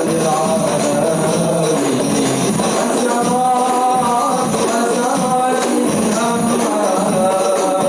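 Rebana frame-drum ensemble playing a steady rhythm, with voices singing a melody over the drums.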